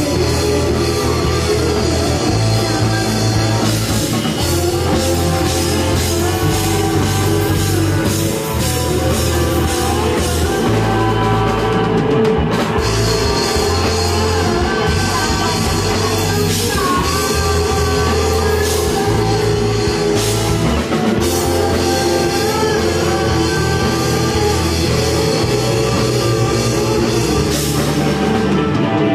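Loud rock band playing: electric guitars and a drum kit with a young boy singing lead vocals.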